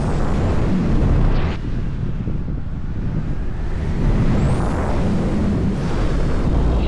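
Wind rushing over the camera microphone in paraglider flight: a loud, low buffeting rumble that swells and eases.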